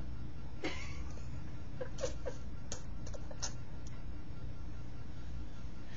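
Steady low hum with a few faint, brief sounds from a baby: a soft vocal sound about half a second in, then small clicks and murmurs between two and three and a half seconds.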